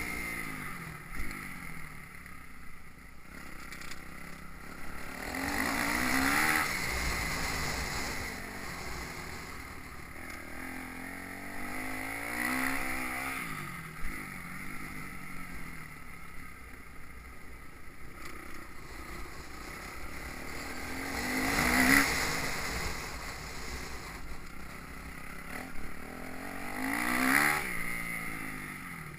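Motocross bike engine revving up hard and backing off several times, with the loudest runs about a third of the way in and near the end. Wind buffets the microphone.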